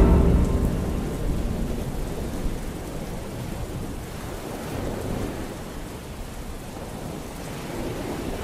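Steady rain with a low rumble of thunder that dies away over the first few seconds.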